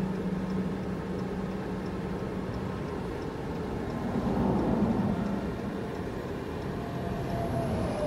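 Car driving, a steady hum of engine and road noise with a louder swell about halfway through.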